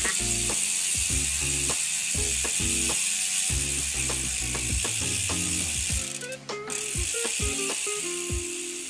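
Speedone Torpedo 8-pawl freehub on a bicycle rear wheel freewheeling, its pawls making a loud, fast ratcheting buzz that eases off about six seconds in. Background music plays underneath.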